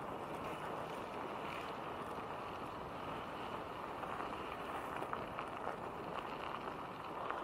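Bicycle tyres rolling steadily over a gravel path, with wind rushing on the microphone: a continuous even noise with a few faint ticks.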